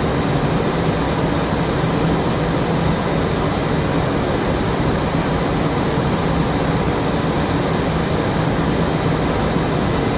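Steady rush of airflow and engine noise inside a Boeing 737-400 Classic's flight deck on descent during the approach, with a constant low hum underneath.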